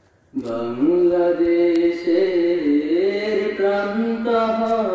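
A boy singing a Bengali naat, a praise song to the Prophet, unaccompanied, in long held notes that step up and down in pitch. The voice starts about half a second in.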